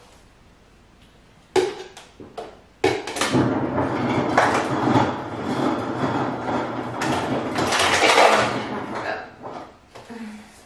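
A couple of knocks, then a refrigerator door dispenser runs into a handheld plastic cup for about six seconds with a loud, uneven rush.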